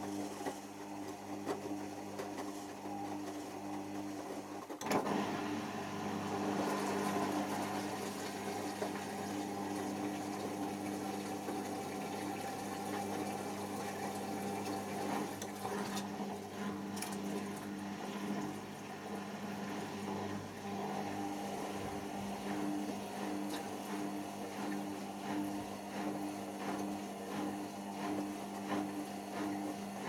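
Beko WMA510 front-loading washing machine with its drain pump humming steadily as it pumps out the prewash water, while the drum turns the wet laundry and water sloshes. The sloshing surges about five seconds in.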